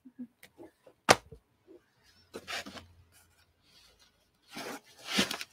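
Handling noises as comic books are picked out of a shipping box: a sharp knock about a second in, then a few short rustles of paper and plastic.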